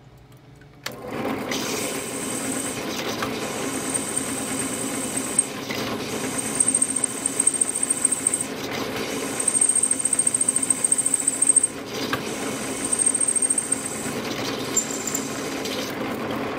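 Princess Auto drill press running at about 850 rpm, starting about a second in, with a water-cooled diamond core bit grinding into jade. A high grinding squeal comes in four spells as the bit is pressed down, with short let-offs between that let water reach the bit.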